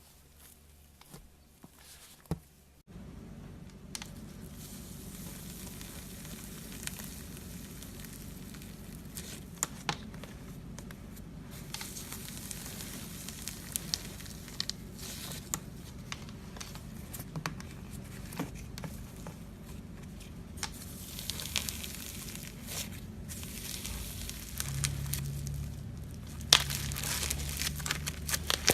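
Slime being squished and stretched by hand, giving a sticky crackling full of small sharp pops and clicks. It starts faint and gets much louder suddenly about three seconds in.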